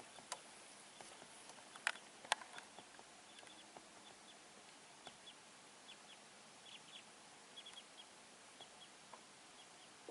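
Near silence: a faint steady hiss with a few sharp clicks in the first two and a half seconds, the loudest two about half a second apart, and many tiny high ticks scattered throughout.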